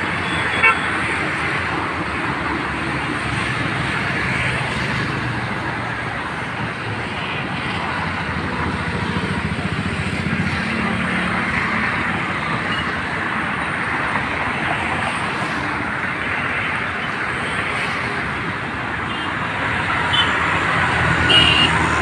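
Steady outdoor background noise, a continuous hiss with a low rumble beneath, with a brief knock about a second in.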